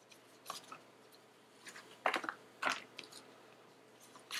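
A paper lens-cleaning wipe rubbing and scrubbing across a smartphone's glass screen in a series of short, scratchy strokes, the two strongest near the middle, to clean off grime before a screen protector is fitted.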